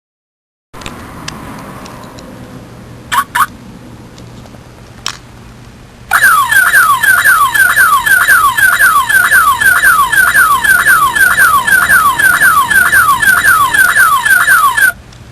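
Scion's car alarm: two short chirps about three seconds in, then a loud siren of rapid falling whoops, about three a second, that runs for some nine seconds and cuts off suddenly.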